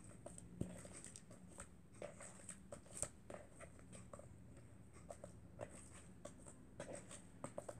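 Faint, irregular sticky clicks and squelches of freshly activated fluffy slime being kneaded by hand in a bowl, with a sharper click about three seconds in.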